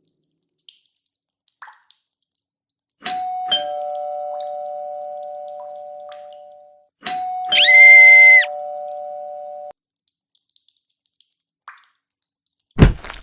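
Doorbell chime ringing ding-dong twice, a higher note then a lower one, each left to ring and fade; a short, loud, high buzzing tone sounds over the second ring. A single sharp knock comes near the end.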